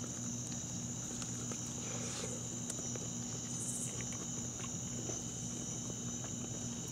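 Steady chorus of night insects, a continuous high trill, with a faint low hum underneath.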